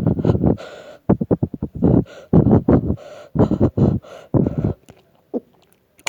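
A person breathing heavily close to the microphone: irregular, ragged breaths and gasps in quick bursts.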